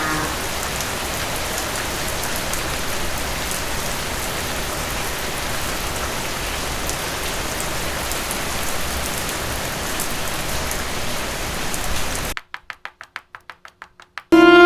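Steady rain falling, a stock rain sound effect. Near the end it cuts off into a quick run of about ten ticks, and bowed-string music starts just before the close.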